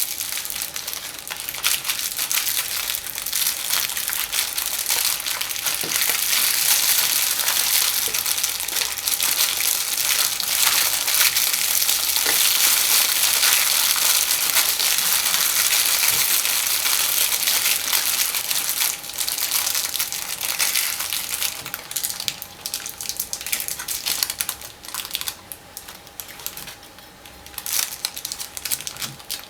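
Candy wrappers crinkling and being crushed close to the microphone while Kinder chocolate eggs are unwrapped. The crackle is dense and continuous through the middle, then thins into separate crinkles near the end.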